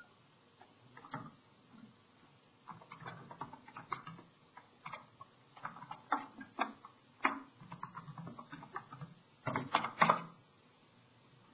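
Typing on a computer keyboard: irregular clicks and taps, ending in a quick flurry of keystrokes.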